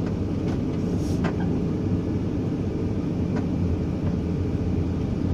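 Steady engine and road noise heard from inside a moving vehicle's cab, with a low hum and a few faint clicks.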